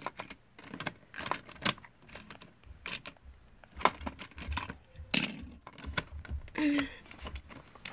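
Irregular plastic clicks and clatter from a Hot Wheels Downtown Power Plant Blast playset being handled, as a toy truck is fitted into its launcher and the grey plastic lever is moved.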